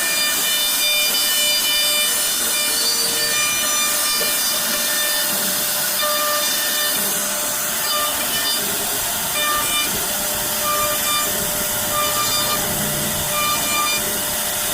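CNC router spindle cutting wood: a steady high whine over a hiss, with some of its tones dropping out and coming back as the cut goes on.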